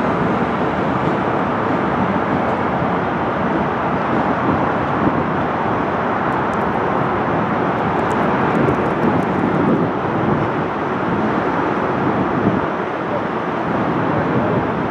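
Diesel switching locomotive running as it moves slowly through the yard with a boxcar: a steady, even engine and rolling noise.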